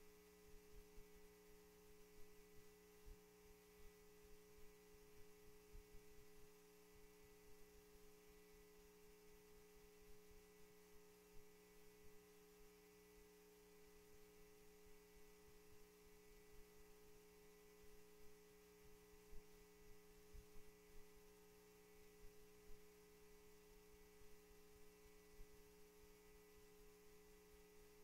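Near silence with a faint, steady electrical hum from the sound system, and a few soft low knocks.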